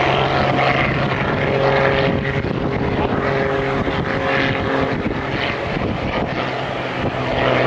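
Aerobatic propeller plane's piston engine and propeller droning through a diving manoeuvre, the pitch shifting up and down as it goes.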